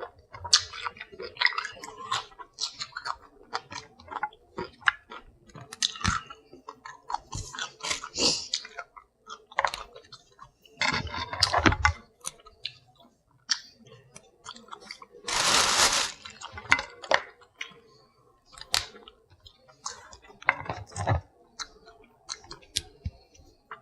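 Close-up sounds of a person eating seafood: chewing and lip-smacking with many short clicks and cracks from handling and biting shell. A louder rush of noise lasting about a second comes around two-thirds of the way through.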